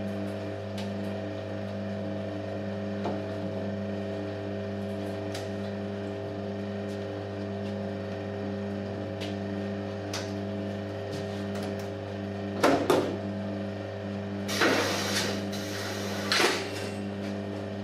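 Glass-mesh corner-profile gluing machine with its automatic profile feeder, running with a steady hum of several fixed tones. Three short, loud hissing bursts come in the last few seconds.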